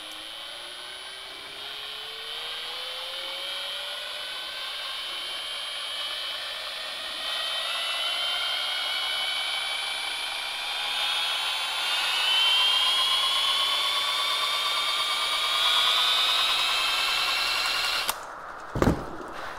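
A power drill spins up a bicycle wheel gyroscope, making a whine that rises steadily in pitch and grows louder as the wheel gains speed. It cuts off suddenly about 18 seconds in, and two sharp knocks follow.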